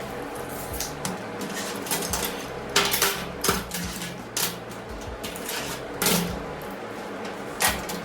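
Metal pieces clanking and knocking as they are handled, a cluster of sharp knocks about three seconds in and single ones later, over a steady background hum.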